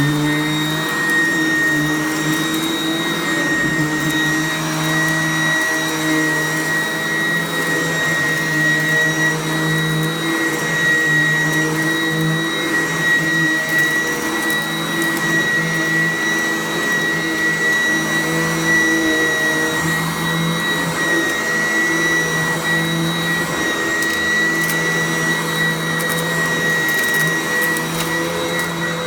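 Sanitaire SC888K commercial upright vacuum cleaner running steadily at full speed, its motor giving a constant high whine.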